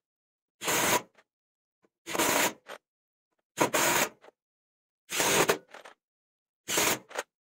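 Parkside Performance cordless impact driver hammering screws into a wooden beam: five short bursts of about half a second each, one screw per burst, about a second and a half apart.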